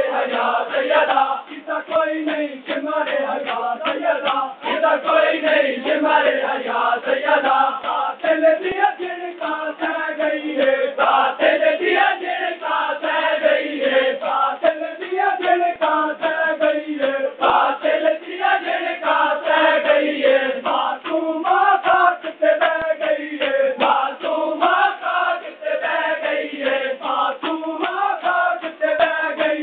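A crowd of men chanting a noha together in a wavering unison. Rhythmic slaps of matam, palms beating on bare chests, run along under the chant.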